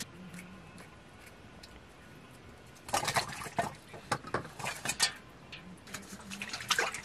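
Small potatoes being set down one by one on a steel plate: a quiet stretch, then a run of light knocks and clatters on the metal from about three seconds in, with a few more near the end.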